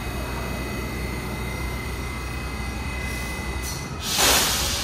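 An R188 subway train at the platform gives a steady low rumble with a faint steady whine. About four seconds in comes a loud, brief hiss of air.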